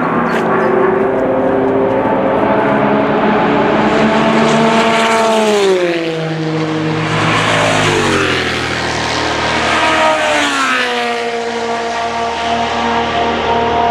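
6.5-litre Chevrolet V8 of a Spice Group C prototype running hard on track. Its pitch falls about five seconds in, dips again around eight seconds, then climbs back up around ten seconds in and holds.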